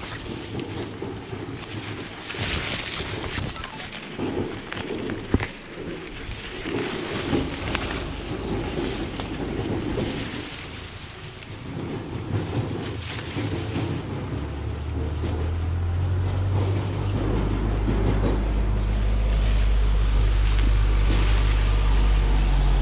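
Gusty wind buffeting the microphone. About fourteen seconds in, a low, steady engine hum from a motor vehicle comes in and grows louder until it dominates.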